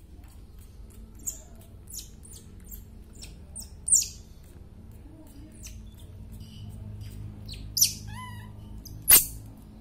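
A baby monkey calling: a string of short, high-pitched squeaks, each falling quickly in pitch, with a few lower falling cries near the end. The loudest squeak comes near the end.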